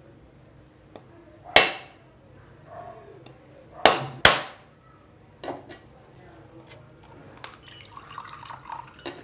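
Whole coconut struck sharply along its ridge line to crack it in half: three hard knocks with a short ring, the last two close together, then quieter clicks and a faint splash of coconut water as the shell splits.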